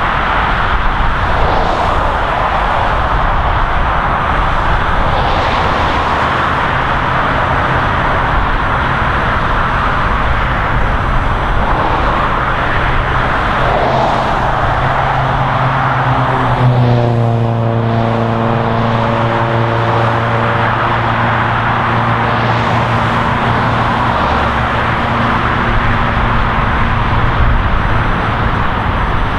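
Steady wash of highway traffic: tyre and engine noise from many vehicles passing. A bit past halfway, one vehicle's engine note stands out for several seconds and drops slightly in pitch as it goes by.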